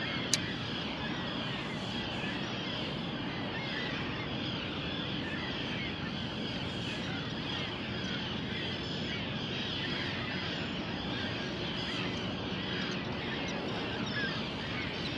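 Many distant birds calling at once over a steady hiss of open-air noise, with one sharp click about half a second in.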